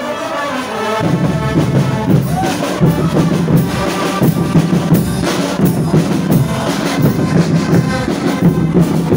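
School marching band playing, brass over drums with a steady bass-drum beat; the music comes in about a second in.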